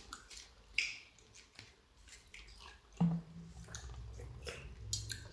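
Close chewing and wet mouth sounds of someone eating a meal of rice and curry, with scattered small clicks. A low hum-like sound starts about three seconds in.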